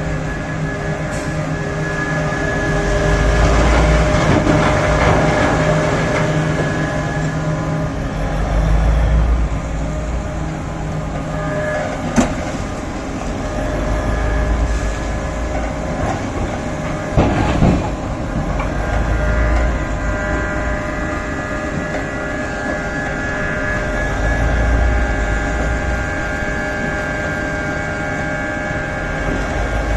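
Komatsu PC4000 hydraulic mining excavator digging: its engine runs steadily under load while the bucket scrapes over hard, poorly blasted rock. Sharp knocks come about twelve seconds in and again around seventeen seconds.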